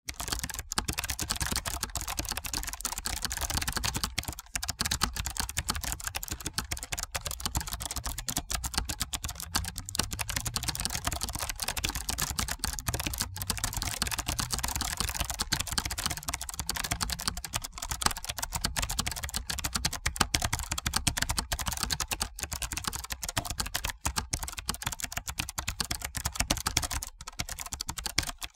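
Computer keyboard typing sound effect: fast, continuous key clicks with no pauses.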